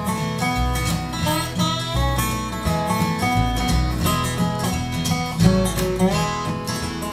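Live bluegrass instrumental break with no singing: strummed acoustic guitar, upright bass, and a lap-played resonator guitar (dobro) sliding between notes.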